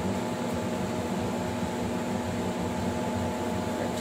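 Steady low machine hum with a faint hiss, unchanging.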